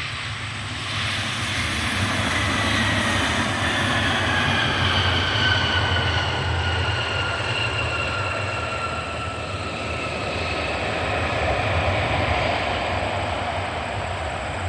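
Regional jet passing close on its landing approach: a steady engine rumble with a high whine that falls slowly in pitch as the aircraft goes by.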